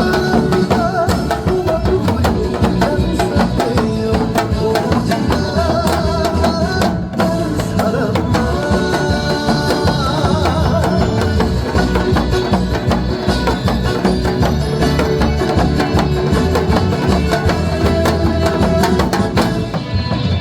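Janggu (Korean hourglass drum) beaten in fast, dense strokes along with a backing song's melody.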